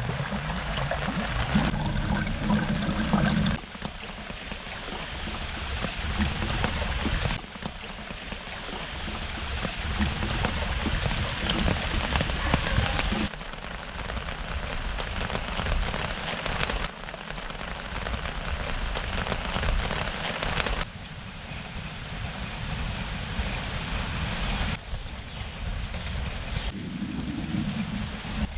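Steady rain falling, with rain runoff rushing along a flooded drain channel like a small torrent. The sound changes abruptly several times as one shot cuts to the next.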